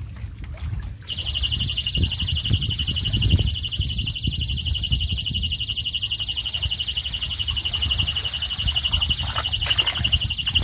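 Electronic bite alarm on a fishing rod sounding a continuous, rapidly pulsing high beep that starts about a second in and cuts off suddenly near the end: a fish has taken the bait. Wind rumbles on the microphone underneath, with splashing in the water near the end.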